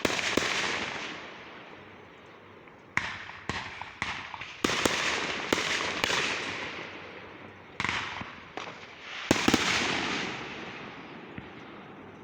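Consumer fireworks going off: clusters of sharp bangs, each followed by a fading crackling hiss, with the loudest burst about nine seconds in.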